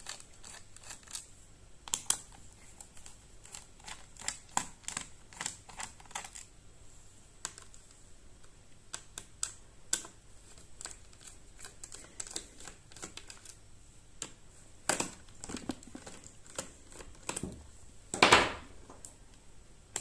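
Phillips screwdriver turning the bottom-cover screws of a Dell Latitude 7290 laptop: a run of small, irregular clicks and ticks as the bit works each screw loose. Near the end there is one louder, brief scraping noise.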